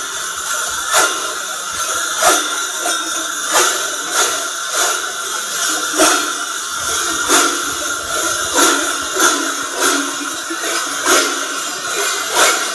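Dozens of large cowbells worn on the bodies of Sardinian mamuthones carnival dancers clanging in a continuous jangle. A louder clash of all the bells together comes about once a second as the dancers step in unison.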